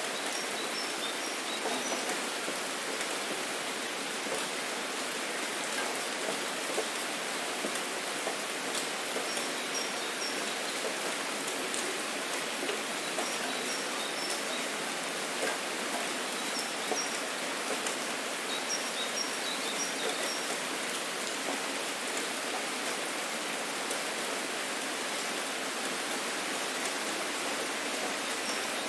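Steady autumn rain falling with an even hiss and scattered drop ticks. Brief high bird chirps come in several times.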